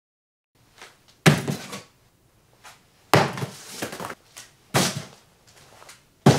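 Large cardboard box being handled: four sharp thuds of cardboard flaps and panels, each followed by a brief scraping rustle.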